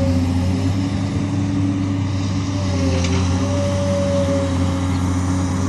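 An engine running steadily with a continuous low hum, and a higher tone that wavers a little in pitch partway through.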